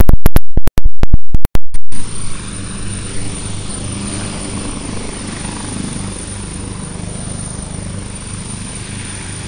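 Helicopter hovering low: a steady, loud rotor beat with a high turbine whine. It opens with about two seconds of very loud, clipped cracks on the recording.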